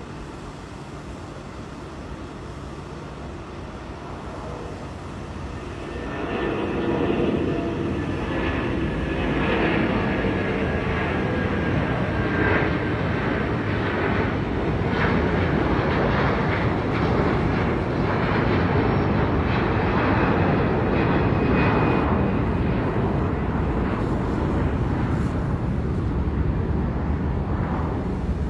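Airbus A330 jet engines running as the airliner passes, a steady roar that swells sharply about six seconds in and stays loud.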